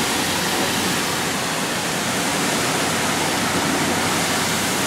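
In-bay automatic car wash running: a steady rushing noise at an even level.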